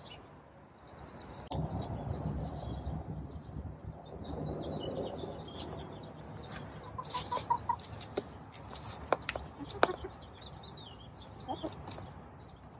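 Backyard hens, Barred Plymouth Rock and Black Star, clucking softly, a short run of quick notes, while pecking and scratching at flattened cardboard on the ground. Sharp taps come through the middle, with a low rustling.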